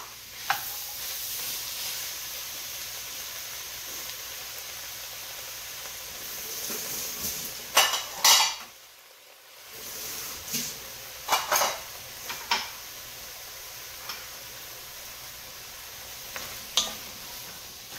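Diced vegetables, frozen carrots among them, sizzling gently over low heat in an enamelled cast-iron Dutch oven, with a wooden spoon stirring and knocking against the pot and bowl several times.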